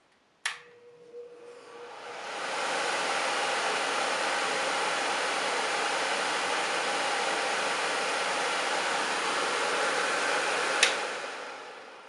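Oster tabletop cage pet dryer switched on with a click, its blower building up over about two seconds to a steady rush of air. Near the end another click, and the blower winds down.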